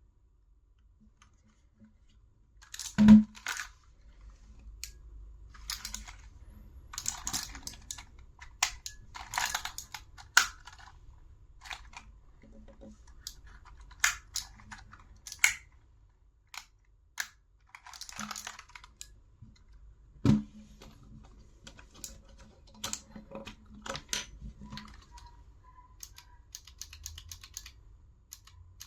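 Keys of a Razer Huntsman Mini with purple clicky optical switches being pressed, in irregular bursts of sharp clicks. Two louder knocks, one about three seconds in and one about twenty seconds in.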